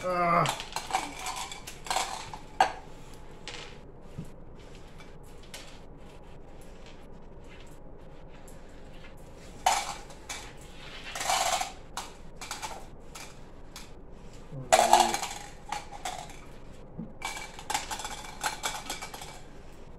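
Small hard pieces clicking as they drop into clear plastic cups, and the cups knocking on a tabletop, in scattered clinks and clatters with louder bursts every few seconds.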